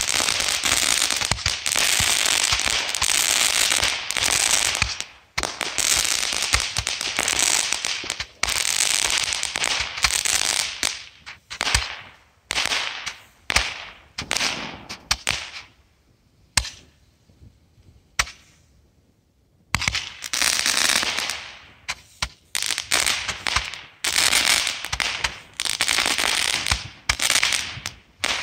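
Fireworks going off: spells of dense crackling and hissing, each a second or two long, with sharp bangs among them. A lull of a few seconds comes past the middle, then more bursts.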